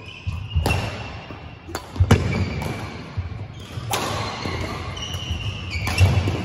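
Badminton rally: rackets hitting the shuttlecock with sharp cracks about every two seconds, four hits in all, with players' feet thudding on the court floor between them.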